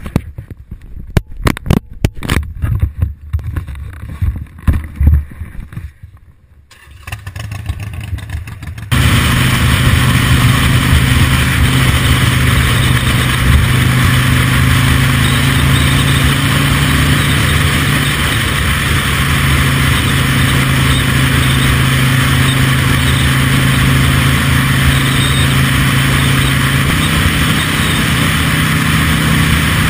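Several seconds of irregular knocks and rustling from a handled camera. Then, from about nine seconds in, a cruiser motorcycle's engine runs steadily at road speed with a steady rush of wind, its pitch shifting slightly now and then.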